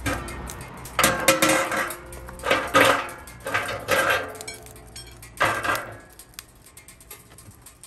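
Steel Pit Barrel Cooker lid lifted off and metal rods slid into the steel drum: four spells of metal clanking and scraping with a brief ringing, the loudest a little after a second in and about three seconds in.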